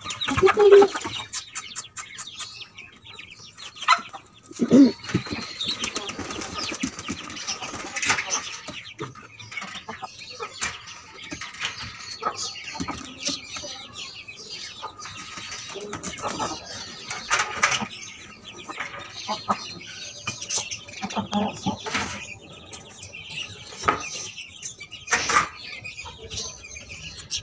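Hens clucking and flapping their wings, with scattered knocks and scrapes of bricks and wood being handled as the hens are shut into a brick hutch.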